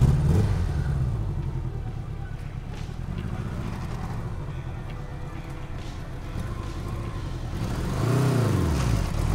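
A 1984 Honda Goldwing 1200's flat-four engine pulling away and fading as the motorcycle rides off, then growing louder as it comes back. About eight seconds in it gives one quick rev that rises and falls in pitch.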